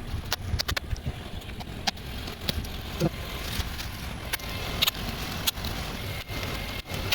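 Wind buffeting the microphone as a steady, uneven low rumble, with scattered sharp clicks and taps throughout.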